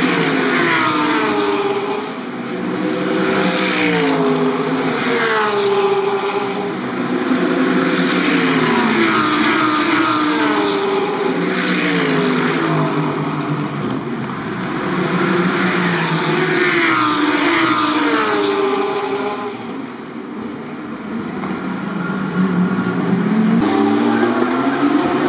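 A stream of GT3 race cars passing one after another through a slow corner, each engine note falling as it brakes and rising again as it accelerates away, with gear changes. Loudness dips briefly before more cars come through near the end.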